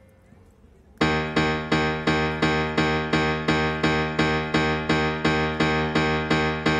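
Background music: after a quiet first second, a keyboard begins playing evenly repeated chords, about three a second.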